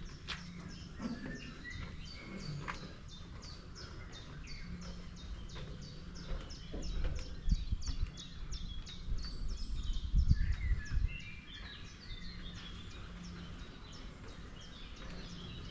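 Forest birdsong: a steady run of short high chirps, about three a second, with other birds calling around it. Footsteps thud on the trail now and then, loudest around the middle.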